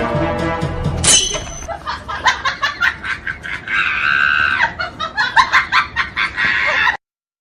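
A cartoonish laughing sound effect: a run of quick, choppy ha-ha bursts with a drawn-out squealing stretch in the middle, cutting off suddenly near the end. It comes in with a sharp high sting as a short bit of music ends.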